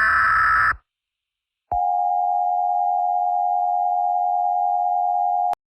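Emergency-alert-style electronic signal: a harsh buzzing data-like burst lasting under a second, then after a short silence a single steady tone that holds for about four seconds and cuts off suddenly.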